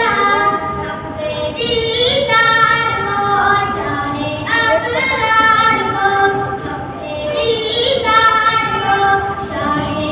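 A boy singing a naat solo into a microphone, one voice alone, in long phrases of held, gliding notes that start afresh about every three seconds.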